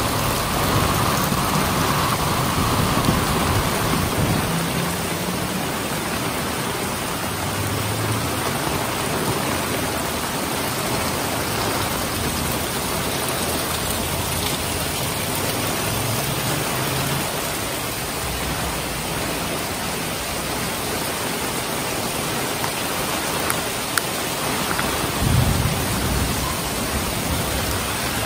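Heavy rain pouring down steadily, a dense, even hiss. A few brief low rumbles rise under it, the strongest near the end.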